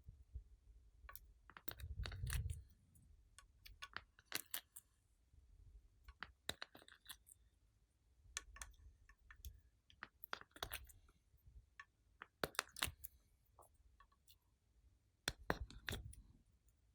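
Glossy slime being handled and mixed by hand, giving irregular sharp clicks and pops in loose clusters, with a couple of soft low thumps.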